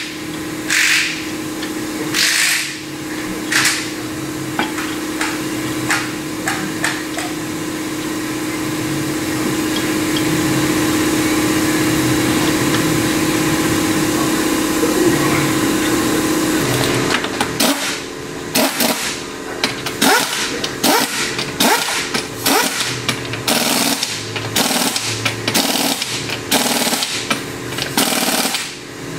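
Auto-shop work noise during a strut replacement: a few knocks, then a steady mechanical hum with a low tone that stops suddenly about sixteen seconds in, followed by a run of short sharp bursts of power-tool noise, about one a second.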